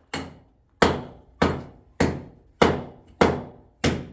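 A mason's hammer (tisheh) striking hard material in a steady rhythm, seven blows about two-thirds of a second apart, each with a short ringing decay.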